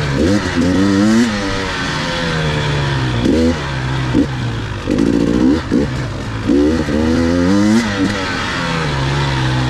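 Two-stroke enduro motorcycle engine being ridden off-road. Its pitch climbs repeatedly with the throttle and falls away between, over a steady noisy background.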